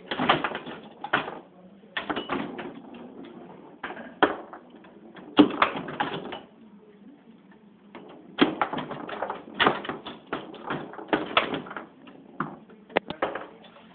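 Foosball game in play: the ball cracking against the players and table walls and the rods clacking, in rapid bursts of sharp knocks with short lulls between rallies.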